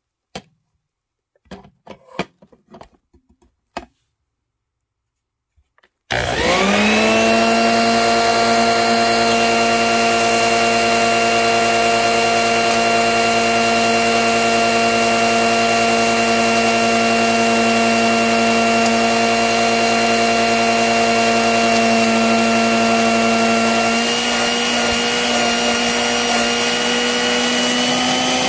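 Faint handling rustles and clicks. About six seconds in, a motor-driven machine starts, spins up within a second and runs loud and steady with a whine of several pitches. Its pitch shifts slightly near the end.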